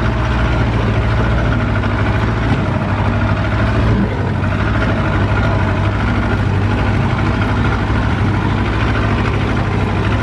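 Engine of an off-road jeep running steadily at an even pitch, with a strong low hum.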